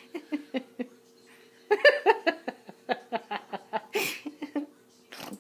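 A person laughing off camera in two runs of quick giggles, with sharp gasping breaths between them. A faint steady hum sits underneath.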